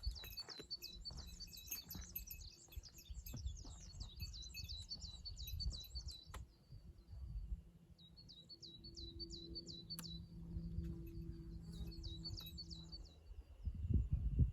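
A small songbird singing long, rapid strings of high repeated notes. The bird pauses about six seconds in and sings again twice, over a low rumble that grows louder near the end.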